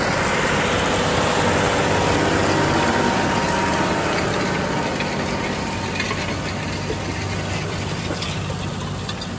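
Diesel engine of a John Deere 8RX four-track tractor running steadily as it works close by. It grows loudest about two seconds in and then slowly fades, with some mechanical clatter in the second half.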